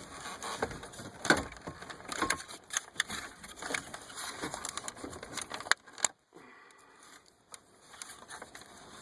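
Hard plastic dash trim and wiring connectors being handled: irregular clicks, taps and scuffs of plastic as the bezel is tilted down and its connectors worked free, with a brief pause about six seconds in.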